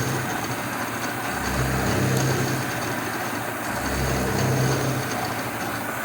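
1980 Shizuoka AN-S CNC milling machine milling a slot in 1018 carbon steel: a steady machining noise with a low hum that swells for about a second, twice, at an even pace of roughly every two and a half seconds.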